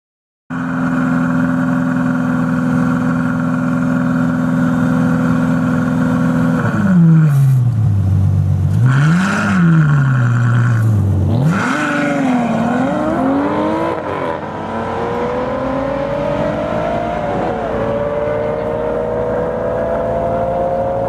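Ferrari FF's V12 held at steady high revs on launch control for about six seconds, then the revs fall and rise twice. The car then launches alongside an Aston Martin DBS, and the engines accelerate away through the gears, the pitch climbing and dropping sharply at each upshift.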